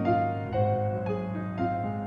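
Piano music: a slow melody of single notes struck about every half second over held bass notes.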